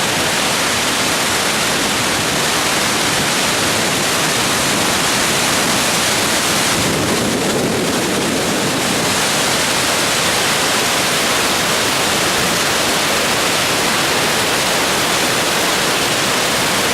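Dettifoss waterfall, a large volume of glacial river water falling, making a loud, steady rushing noise that turns deeper for a couple of seconds about seven seconds in.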